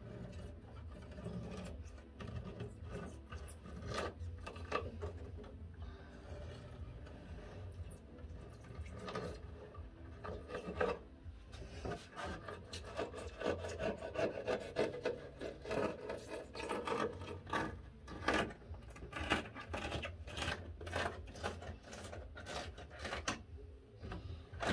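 Knife cutting through a thin cork sheet along the edge of a wooden board, in irregular short scraping strokes, with rubbing as the cork offcut is pulled away.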